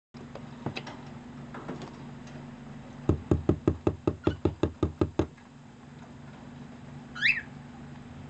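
Fingers knocking rapidly on a cardboard box: about a dozen quick, sharp taps at roughly six a second, after a few lighter taps in the first two seconds. Near the end a cockatiel gives one short rising chirp.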